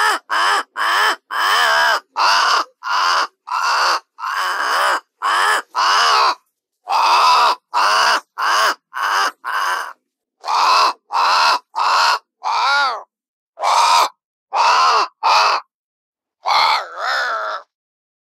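Crow cawing: about two dozen harsh caws in quick succession, separated by short gaps of dead silence, with a longer pause and then a double caw near the end.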